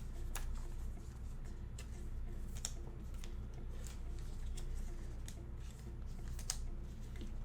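Trading cards being handled and sorted by hand: a series of light, irregular clicks and snaps as cards are flicked and slid against each other.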